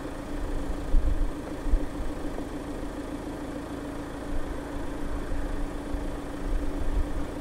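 Citroën DS5 BlueHDi 180's 2.0-litre four-cylinder diesel idling with a steady hum, with uneven gusts of wind rumbling on the microphone.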